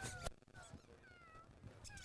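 Faint, short, high-pitched dog whines, several brief gliding cries in two seconds, with a single sharp click about a quarter second in.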